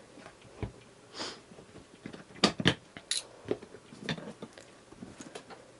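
Latches of a hard plastic rifle case being unclipped to open it: a scatter of sharp plastic clicks and knocks, the loudest a pair of snaps about two and a half seconds in.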